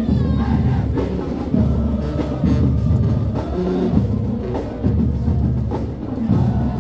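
Marching band playing: drums and a bass drum beating steadily under a melody.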